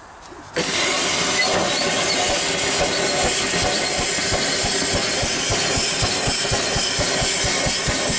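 Steam engine being started with its cylinder drain cocks open: steam suddenly hisses loudly about half a second in as the water is blown out of the cylinders. Under the hiss the engine turns over with a fast, even beat of low chuffs.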